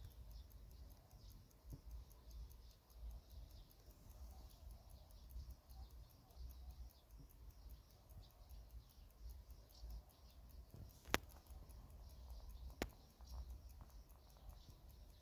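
Stadion Super 7 Jewels mechanical stopwatch running, its movement giving a faint, rapid, even ticking. Two sharp, louder clicks come about a second and a half apart, roughly two-thirds of the way through.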